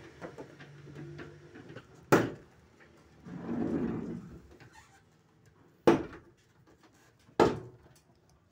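Toyota HiAce sliding door being worked by hand: three sharp clunks of the door and its latch, with a short rumble of the door moving between the first two.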